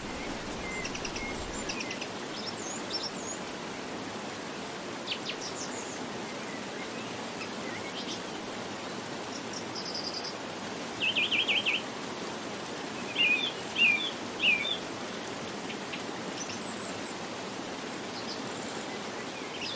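Birds chirping over a steady background hiss, with a quick run of notes about eleven seconds in and three louder chirps soon after.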